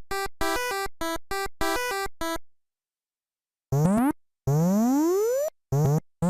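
Electronic synthesizer sounds: a quick run of short beeping notes, a gap of about a second, then two rising sweeps and a couple of short notes near the end.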